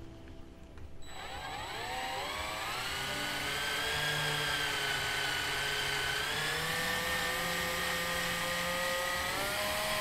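Power drill turning a 0.25-inch reamer to clear powder coating out of a fuselage tab's bolt hole for a seatbelt mount. The motor whine starts about a second in, rises in pitch as it spins up, then holds steady.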